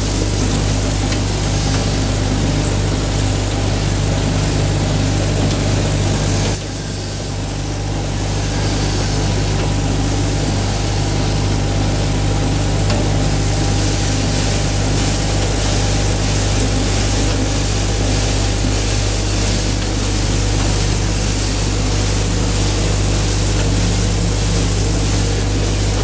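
Z-type bucket elevator running, a steady low machine hum under a dense hiss and rattle of seeds pouring off the feed chute into the climbing buckets. The level dips briefly about six and a half seconds in, then returns.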